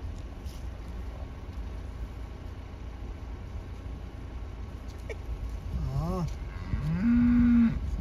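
Cattle mooing twice near the end: first a short call that rises and falls, then a longer, louder call that rises and holds at a steady pitch.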